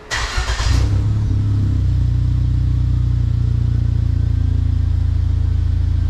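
Ford Fusion's 1.6 EcoBoost turbocharged four-cylinder starting: a brief burst of cranking as it catches, then a steady idle.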